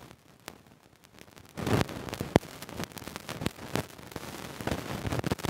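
Scattered sharp clicks and crackling, with a short rush of noise about one and a half seconds in.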